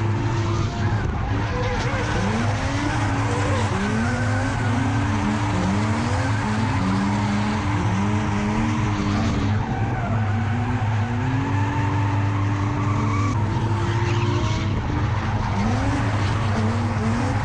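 Two drift cars running in tandem: a steady low engine drone with the engine note repeatedly rising and falling as the throttle is worked, over tyre skid noise.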